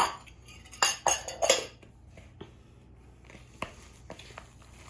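Kitchen dishes clattering: a plastic mixing bowl and utensils knocking and scraping on a wooden butcher-block counter, a cluster of knocks in the first second and a half, then only a few faint clicks.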